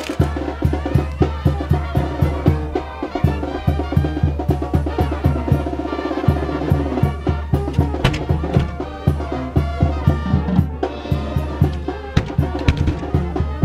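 Brass band music with drums and a steady beat, in the style of a Mexican banda.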